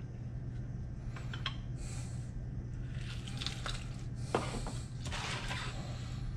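Hand-held lemon squeezer pressing lemon halves: several short wet squishes of juice being squeezed out, with a sharp click about four seconds in. A steady low hum runs underneath.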